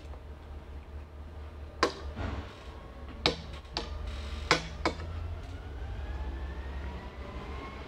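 Metal spoon clinking and scraping against a ceramic plate while scooping food, five sharp clinks in the first five seconds, over a steady low hum.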